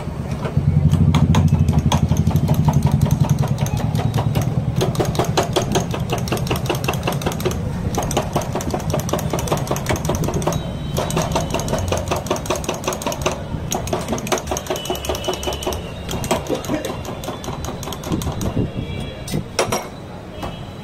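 Fast, even rattling clatter with a low machine hum in the first few seconds, and a few ringing clinks of a spoon on drinking glasses midway through.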